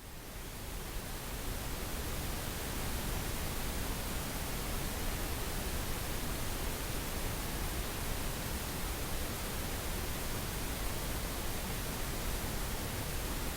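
Steady pink noise, an even hiss, fading in from silence over about the first second and then holding level. It is a burst of the pulsed pink noise used as a deep-sleep memory-enhancement signal.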